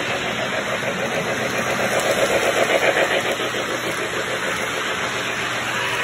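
Lionel O27 toy train running on three-rail track: a fast, even clatter of motor and wheels with the set's steam-train sound effects, growing louder as the train nears, loudest about two to three seconds in.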